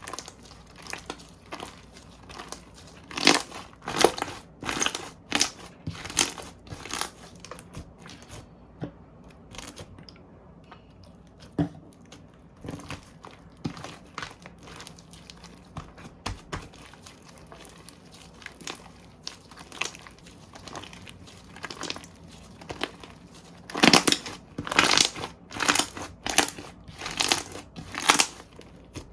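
Slime being squeezed and poked by hand, giving sharp crackly, squishy pops in bursts, with a quieter stretch in the middle.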